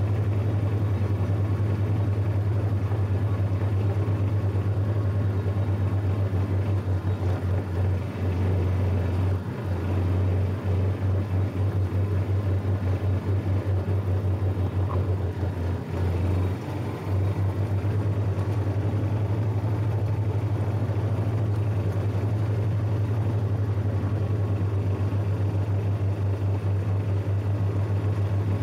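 Small engine of a John Deere riding lawn tractor running steadily under way, heard close up from the machine itself, its throb dipping briefly twice, about a third and about three fifths of the way through.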